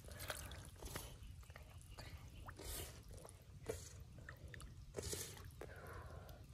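A hand sloshing and squelching through shallow muddy water and soft mud, in short, irregular wet splashes.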